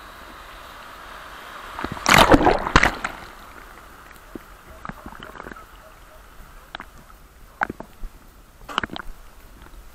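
Seawater sloshing and splashing as waves wash in, with one loud splash lasting about a second, two seconds in, and smaller splashes after it.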